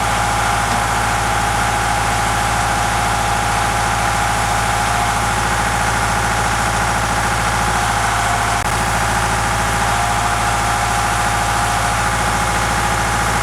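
Deutz 6207 tractor's diesel engine idling steadily, an even drone with a constant higher tone over it.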